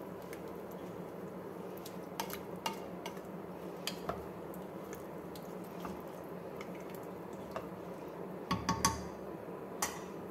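A long spoon stirring milk, water, rice and vegetables in a stainless-steel pressure cooker pot, with scattered clinks of the spoon against the pot. A quick run of three ringing taps on the pot comes near the end, over a steady low hum.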